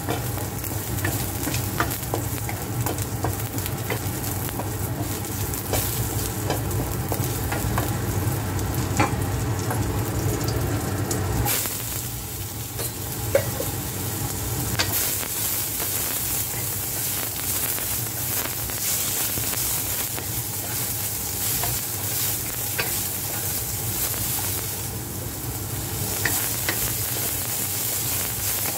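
Garlic sizzling in hot oil in a wok while a wooden spatula stirs and scrapes across the pan, with scattered clicks. About twelve seconds in the sound changes suddenly as strips of celery go into the pan and are stirred through the oil.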